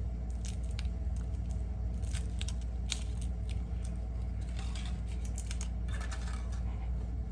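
Foil wrapper of a Kinder Surprise chocolate egg crinkling and tearing as it is peeled off, in many small irregular crackles, over a steady low hum.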